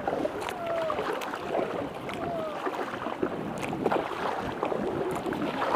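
Splashing and dripping from a double-bladed kayak paddle as its blades dip into the lake, with water lapping along the hull of an Innova Helios I inflatable kayak.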